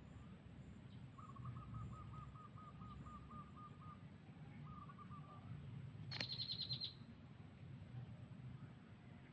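Birds calling: a quick run of a dozen or so even, low notes, a shorter run a little later, then a brief fast, high twitter about six seconds in, over a faint steady high whine.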